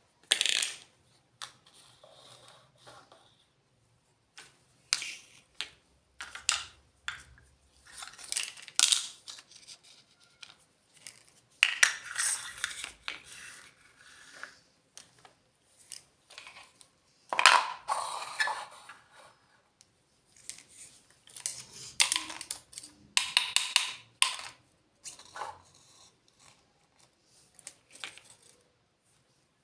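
Pieces of a miniature toy kitchen set and their packaging being handled: scattered clicks, taps and short rustles with pauses between, and a few small clinks that ring briefly.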